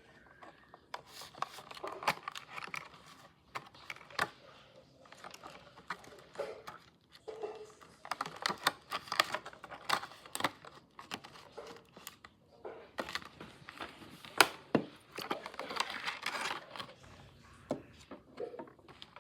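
Packaging being handled and opened: irregular crinkling and tearing with sharp clicks and knocks, on and off throughout.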